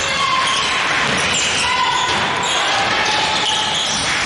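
Basketball being dribbled on a hardwood court during play, with short sneaker squeaks and voices in the gym.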